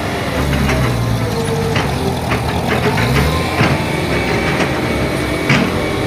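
A single-drum road roller's diesel engine running steadily as the machine works, with scattered clanks and knocks from the earthworks machinery.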